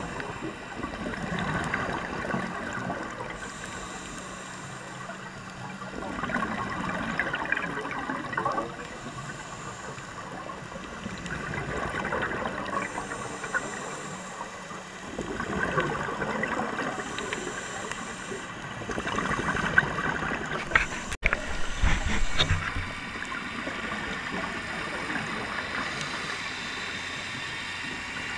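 Scuba regulator exhalations: bursts of rushing, gurgling bubbles that swell and fade about every four to five seconds. A few sharp knocks come about two-thirds of the way through.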